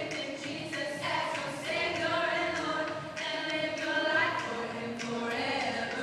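Children's choir singing together, holding and changing sung notes.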